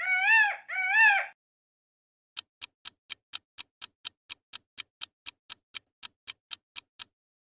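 Peacock calling: the last two of a run of loud repeated calls, each rising and then falling in pitch, ending about a second in. Then a clock ticks steadily, about four ticks a second, as a countdown timer.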